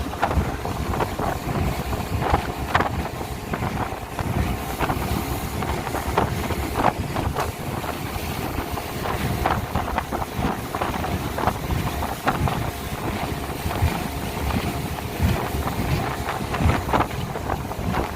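Speedboat running at speed: a steady engine drone under wind buffeting the microphone, with the hull repeatedly slapping on the waves in short irregular knocks.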